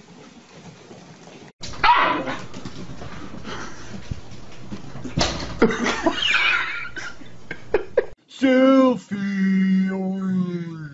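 Puppies and small dogs barking and yipping in ragged bursts at their own reflection in a mirror. About eight seconds in, a dog starts a long drawn-out pitched vocalizing that holds a note and then wavers up and down.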